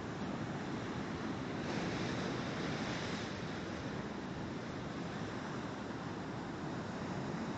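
Heavy ocean surf: big waves breaking and whitewater rushing in a steady roar of noise. A breaking wave swells the hiss louder about two seconds in.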